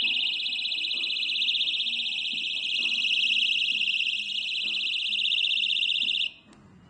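Personal safety alarm keychain sounding its loud, high-pitched siren. It starts suddenly with a click and cuts off about six seconds in.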